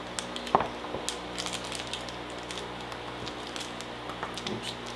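Kitchen knife cutting a chocolate-covered caramel Curly Wurly bar against a tabletop: scattered light clicks and taps, with one sharper knock about half a second in, over a faint steady hum.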